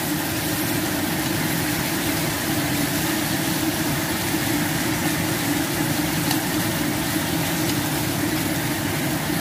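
Chicken pieces sizzling in a nonstick frying pan as they are stir-fried and turned with chopsticks. A steady low hum runs underneath, with a few faint clicks.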